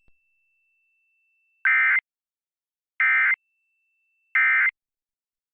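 Emergency Alert System end-of-message (EOM) tones: three short, identical bursts of buzzy SAME digital data, evenly spaced a little over a second apart. They signal the end of the alert test.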